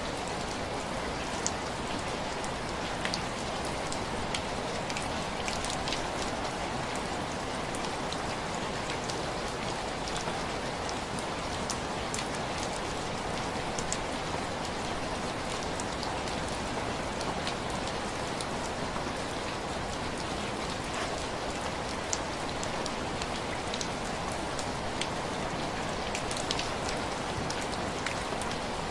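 Steady heavy rain, with scattered sharp crackles and pops from a wood fire.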